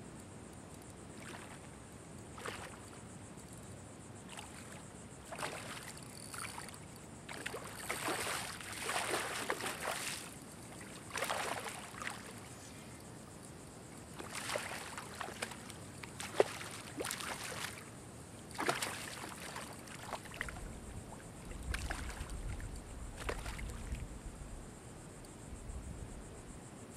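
Water splashing and sloshing in shallow water in irregular bursts, with a couple of sharp clicks about two thirds of the way in. A steady high insect drone runs underneath.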